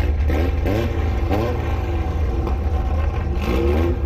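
Car engines running at low speed with a deep, steady rumble. Several short rising revs come early and again near the end.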